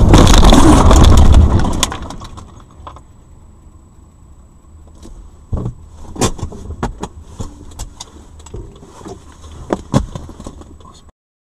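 Car noise on dashcam audio: a loud burst that fades away within about two seconds, followed by scattered sharp knocks and clicks. The sound cuts off abruptly near the end.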